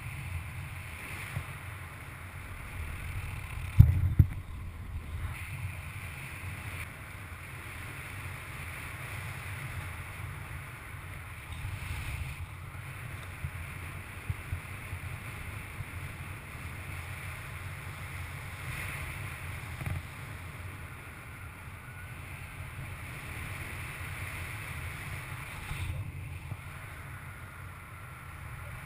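Airflow buffeting the microphone of a paraglider pilot's harness- or helmet-mounted camera in flight: a steady low rumble of wind noise. One sharp, louder thump comes about four seconds in.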